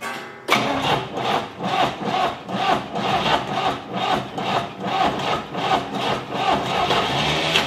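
A starter cranking the Chevy Monza race car's engine over, in an even rhythm of about two pulses a second.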